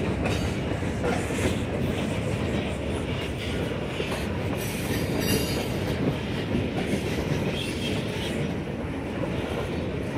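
Freight cars, loaded centerbeam flatcars and gondolas, rolling past on yard track. The sound is a steady rumble with the wheels clacking now and then over rail joints.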